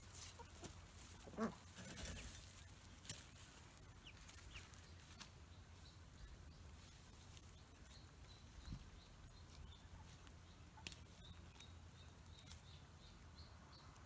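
Near silence outdoors, with a few faint clicks. There is one brief animal call about a second and a half in, and from about eleven seconds in a faint high chirping repeats about three times a second.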